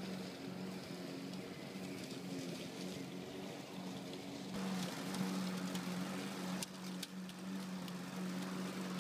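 Lawn mower running with a steady drone, with scattered light clicks over it in the second half.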